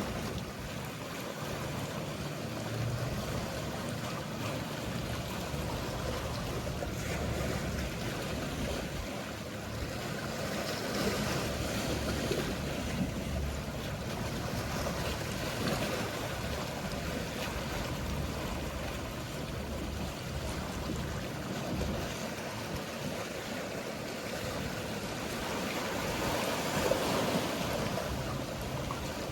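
Mediterranean sea waves washing steadily, with a low rumble underneath and a slightly louder surge near the end.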